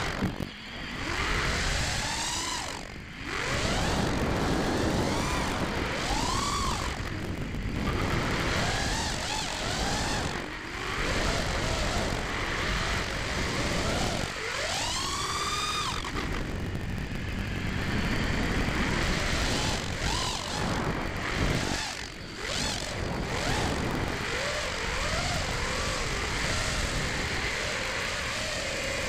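A 5-inch FPV quadcopter's four ZMX Fusion 2205 2300kv brushless motors spinning HQProp 5040 three-blade props, heard onboard: a buzzing whine that rises and falls in pitch with the throttle. The sound drops briefly a few times where the throttle is chopped.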